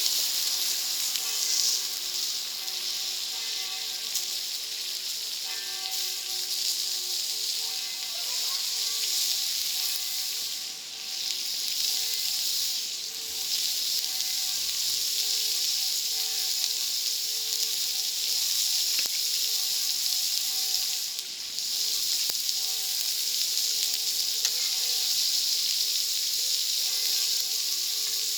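Food sizzling steadily on a hot wood-fired grill or plancha: a dense, even hiss that dips briefly a few times, with faint steady tones underneath.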